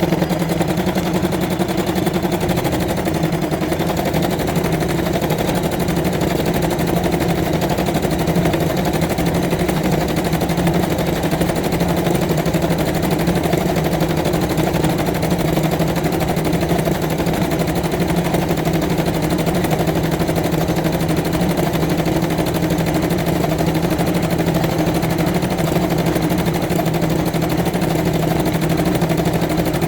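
Janome Blue 12 domestic sewing machine running continuously at a steady speed, a rapid even needle clatter over a steady motor hum, as it stitches straight stitch to fill a petal.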